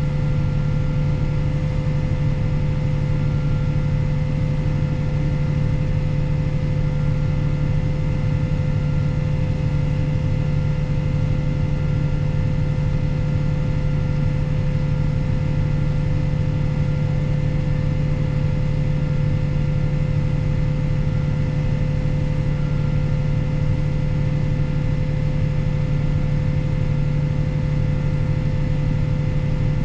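Fendt 716 Vario tractor's six-cylinder diesel running at a steady engine speed under load, with a steady higher whine alongside and no change in pace.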